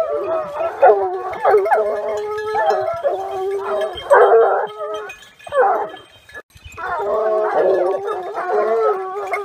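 A pack of Gascon Saintongeois hounds baying on wild boar, several voices overlapping in long, drawn-out calls that break off briefly about six seconds in.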